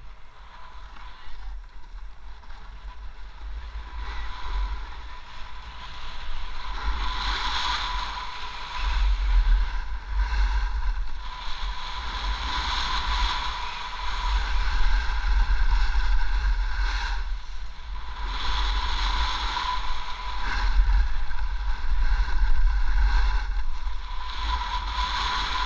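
Wind buffeting an action camera's microphone during a ski-slope descent, a heavy fluttering rumble that grows stronger about a third of the way in. Over it, the rider's edges scrape across packed snow in swells every two to three seconds as the rider turns.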